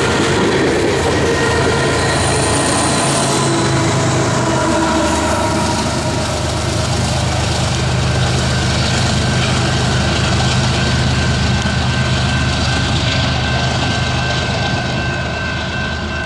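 Loaded covered hopper cars of a freight train rolling past with a dense rumble and clatter of steel wheels on rail, thin steady wheel squeal above it. From about five seconds in, the diesel engine of the rear distributed-power locomotive joins with a steady low hum as it passes, easing off near the end.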